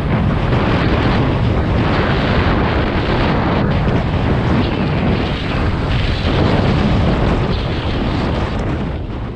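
Wind buffeting a helmet-mounted GoPro's microphone as a downhill mountain bike rides fast down a grassy slope, with the rumble and rattle of the bike and tyres on the rough ground underneath. The noise starts to fade near the end.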